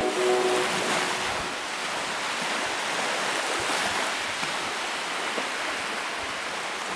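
Steady rush of sea surf washing on a beach, with the last notes of a mallet-percussion tune dying away at the very start.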